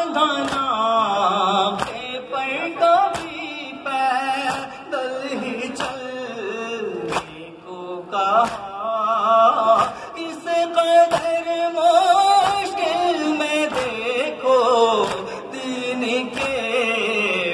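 A noha, an Urdu Shia mourning lament, sung by a male voice in long, wavering held notes. Sharp slaps of massed chest-beating (matam) fall in time about once a second.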